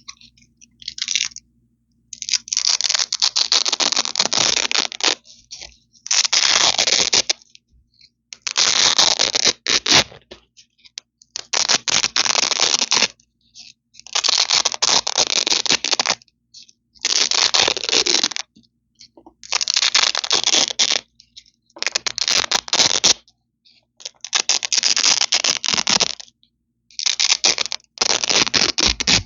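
Hook-and-loop (Velcro) strips being ripped apart close to the microphone: a crisp, crunchy tearing. There are about a dozen separate rips of one to three seconds each, with short pauses between them.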